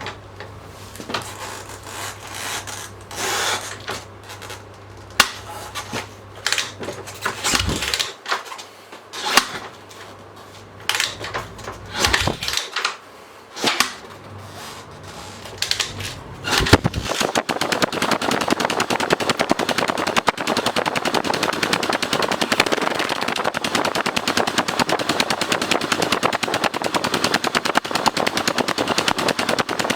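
Yamaha TT600's single-cylinder four-stroke engine, running on velocity stacks with a newly fitted jet kit, catches about 17 seconds in and runs with a fast, even beat. Before it catches there are scattered knocks and clunks.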